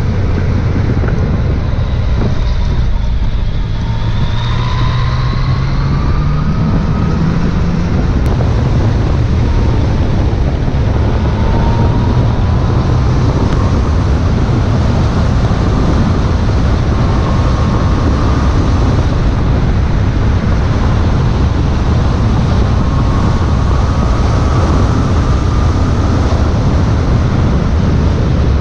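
Heavy wind rush on the camera microphone while riding a Yamaha MT-09 SP. The bike's three-cylinder engine can be heard faintly under it, its note rising several times as it pulls through the gears.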